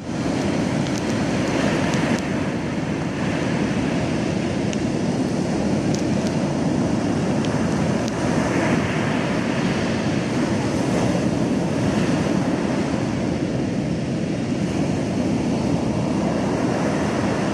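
Sea surf breaking on a sandy beach: a steady wash of waves, with the hiss swelling every few seconds as a wave breaks.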